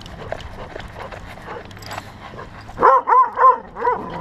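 A dog barks four times in quick succession near the end, loud and close. Before the barks there is scuffling and knocking of dogs on the move.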